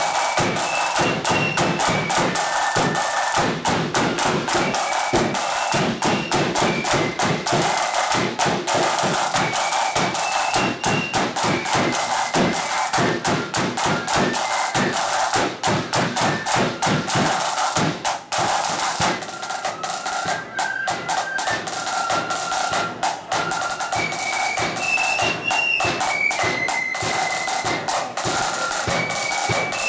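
Marching flute band playing: a row of side drums beating out a fast, dense rhythm under flutes carrying a stepping melody. There is a brief dip in the playing about two-thirds of the way through.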